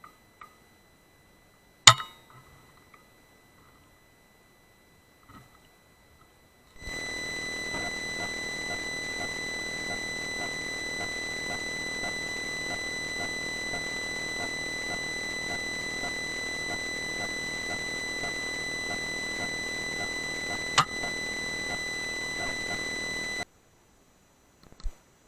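A Weihrauch HW100 pre-charged air rifle firing once, a single sharp crack about two seconds in. Later a steady high-pitched whine with faint regular ticking takes up most of the rest, with a second sharp crack near its end.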